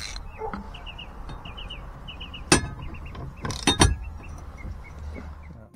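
Ratchet wrench and 3/4-inch socket clicking on the rusty steering-wheel nut of a boat helm: one sharp metallic click, then a quick cluster of clicks about a second later.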